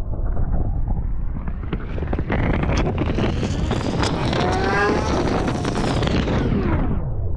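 Muffled underwater rumble and water noise picked up by a camera held beneath the surface of a planted fish tank. A hiss swells louder through the middle, with a few brief rising tones, and cuts off abruptly near the end.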